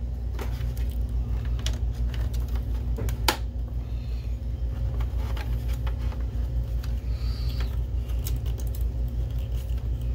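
Small clicks and rattles of a plastic lamp connector and its wires being handled and pushed into place inside a projector's metal chassis, with one sharper click about three seconds in. A steady low hum runs underneath.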